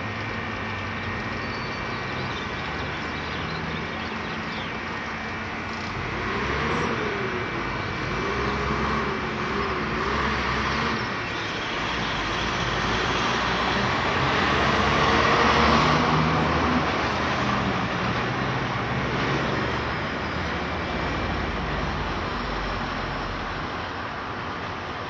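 Road traffic at an intersection: cars and trucks passing, the noise swelling to its loudest about halfway through and then easing off.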